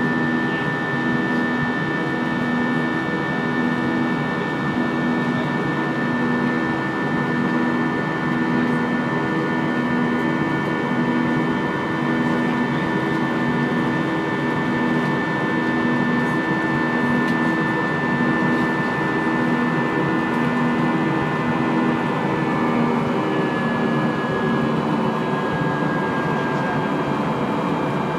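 Airbus A320 cabin noise heard at a window seat beside the wing: the steady rush and drone of the jet engines and airflow, with a high engine whine and a low hum that pulses slowly and regularly. The whine drops slightly in pitch near the end.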